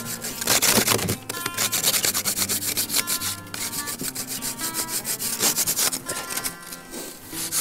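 Hand-held plastic ice scraper scraping frost off a car's glass windscreen in rapid repeated strokes, a rough scratching rasp.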